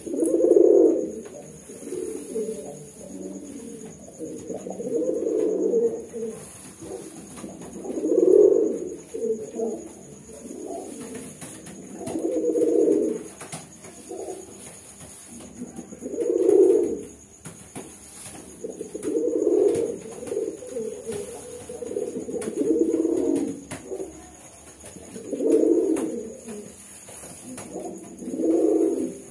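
Domestic pigeons cooing: low, rolling coos repeated every two to four seconds. This is the bow-coo of a pigeon with its neck feathers puffed out.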